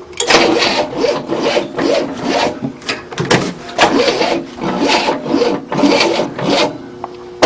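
1967 Cadillac V8 turning over slowly on the starter without firing, a rhythmic rasp at about two compression strokes a second that stops near the end. The engine has sat for about 30 years and may be flooded.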